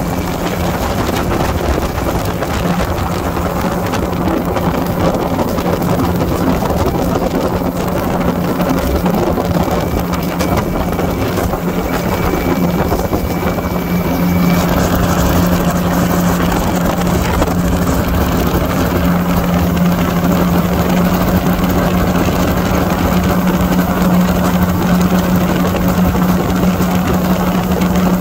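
Light aircraft engine and propeller running steadily in flight, with a strong steady hum and wind rush heard from the open cockpit; the sound gets a little louder and brighter about halfway through.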